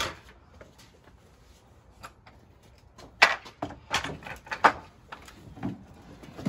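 Painted bed-frame boards and salvaged furniture knocking and clattering as they are slid and set down in a pickup truck's bed: a sharp knock at the start, then several loud clunks between about three and five seconds in.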